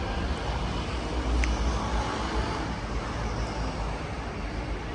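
Outdoor street ambience in a town centre: a steady low rumble under an even hiss, with a brief light tick about a second and a half in.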